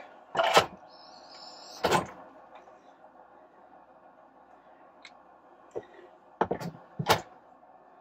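Instant Pot's plastic lid being twisted to unlock and lifted off the pot: a couple of sharp clicks in the first two seconds, then a few knocks near the end as the lid is set down.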